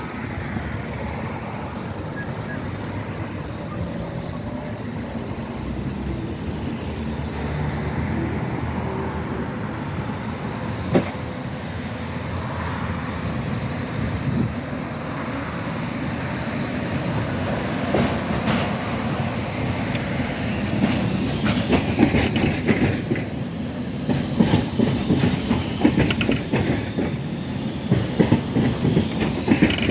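Road traffic rumble, then a Crotram TMK 2200 low-floor tram running close by, its wheels clacking over rail joints and the track crossing. The clacks come thicker and louder through the second half, with one sharp knock about eleven seconds in.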